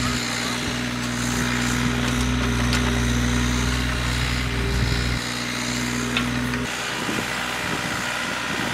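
Mini excavator's diesel engine running steadily as it digs. The low part of the sound changes about two-thirds of the way through.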